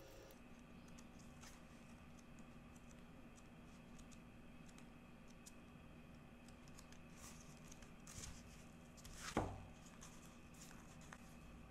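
Quiet handling of a paper photobook: faint rustles and small clicks of pages being turned, with one louder brush of paper about nine seconds in.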